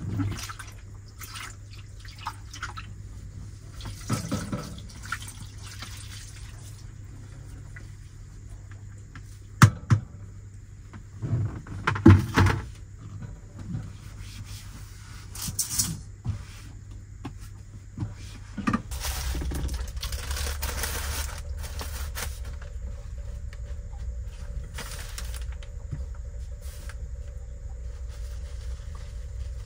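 Water running and splashing in a plastic basin at a small camper-van sink, with a few sharp knocks and clatters of things being handled. A steady low hum lies underneath and deepens about two-thirds of the way through.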